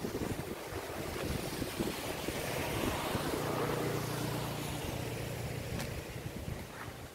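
A motor engine passing by: a low hum swells to a peak about three to four seconds in and fades, with wind rumbling on the microphone.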